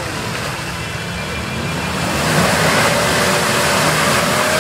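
Small Toyota pickup truck's engine running under load as it crawls through deep mud. It revs up and gets louder about two seconds in, with a rushing noise of tyres churning the mud.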